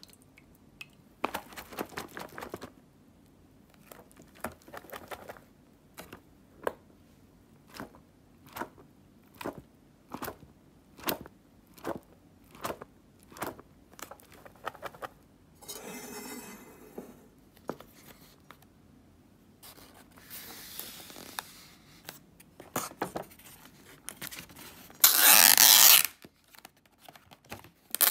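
Water dripping from an instant yakisoba cup's drain slots into a bowl of water as the cup finishes draining, slowing to an even drip about twice a second. Then come papery rustles and scrapes of the cup's lid, with a loud rustle and tear near the end as the lid is peeled back.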